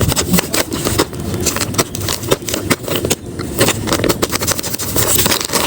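Paper and tape crinkling and rustling as a handmade paper blind bag is unwrapped by hand, in a dense run of sharp crackles.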